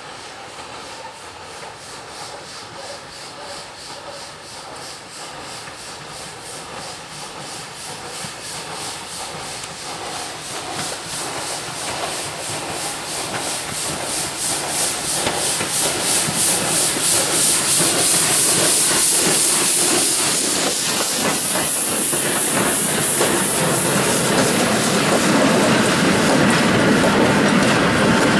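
Ol12-7 steam locomotive approaching with a train of carriages, its exhaust beating in a quick, even rhythm that grows steadily louder. Near the end the carriages roll close by, with their wheels rumbling on the rails.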